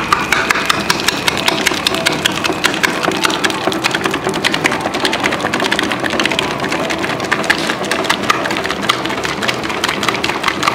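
Zeppelin B7 Artisan stand mixer kneading a butter-enriched bread dough at speed 3: the motor runs steadily under a rapid, regular slapping of the dough against the bowl, about five slaps a second.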